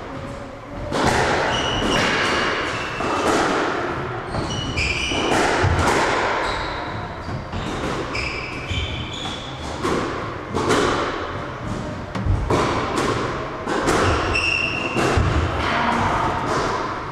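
Squash rally: the ball thudding off racquets and the court walls at an irregular pace, about once a second, echoing in the court, with short squeaks of players' shoes on the wooden floor.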